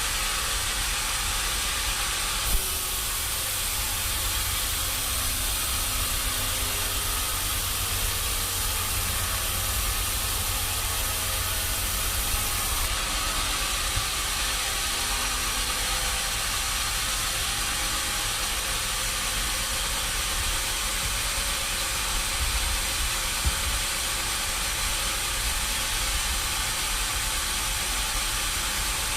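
Sawmill machinery running: a steady hissing noise over a low rumble, with a few faint knocks.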